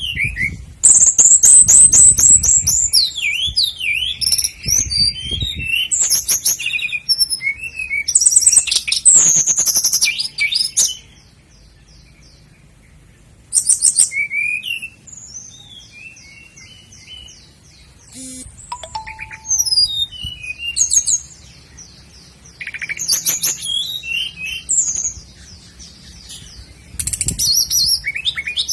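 Common nightingale singing: varied phrases of quick trills, sweeping whistles and chattering notes, separated by short pauses, the longest a couple of seconds about halfway through.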